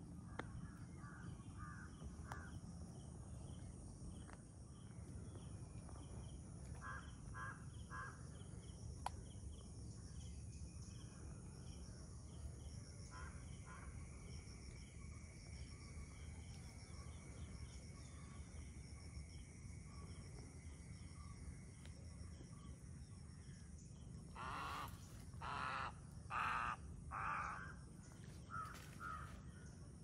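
Crows cawing in short series of calls, with the loudest run of five or six caws near the end.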